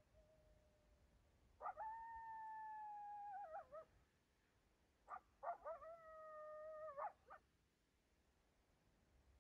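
Faint coyote howling: a long held howl of about two seconds that breaks and falls away at its end, then a few short yips and a second, lower howl that ends in wavering breaks.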